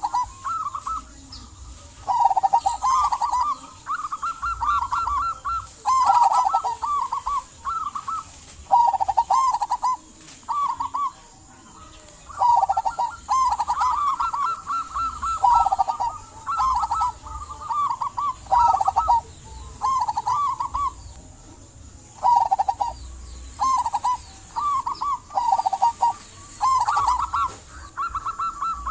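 Local zebra dove (perkutut) singing: a long run of short, rolling cooing phrases, each about a second long, with brief gaps between them.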